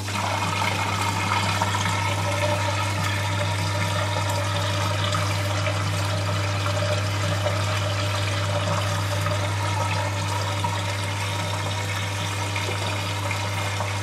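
Zanussi FL 1234/A washing machine's drain pump running with a steady hum as water rushes out of the drum. The machine is draining before its spin.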